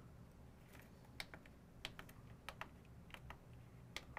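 Faint, irregular clicks of buttons being pressed on a Sony RM-BR300 PTZ camera controller, a dozen or so over a few seconds.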